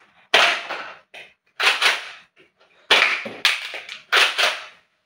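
Nerf Accu-Rival Forerunner, a spring-powered foam-ball blaster, firing repeatedly: about five sharp pops roughly a second apart, each with a short ring-out.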